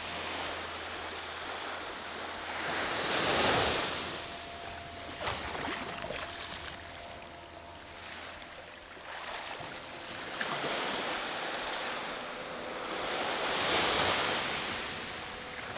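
Small waves breaking and washing up a sand-and-rock beach, with swells of surf loudest about three and a half seconds in and again near fourteen seconds.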